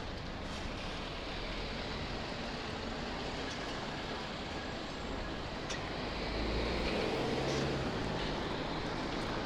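Road traffic noise heard from a moving e-bike: a steady rush of tyres and nearby cars, louder for a couple of seconds from about six seconds in as a vehicle's engine comes close.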